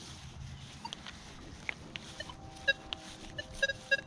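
Nokta Legend metal detector's audio over foil-littered ground: a few sharp crackles, then from about two seconds in a low steady tone and a quick run of short, higher beeps as the 6-inch coil sweeps.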